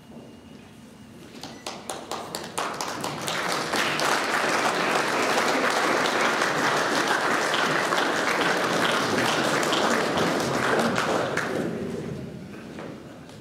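Audience applauding: a few scattered claps about a second in, swelling to full, steady applause, then dying away near the end.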